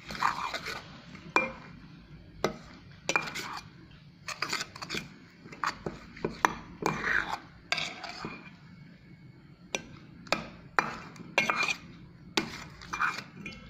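A spoon knocking and scraping against a bowl while stirring slime that contact lens solution is activating, with irregular sharp clacks about once or twice a second and scraping between.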